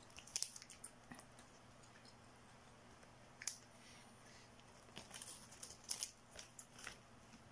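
Faint, scattered mouth sounds of someone chewing spicy instant noodles. About halfway through come a few brief crinkles of the plastic noodle packet being handled.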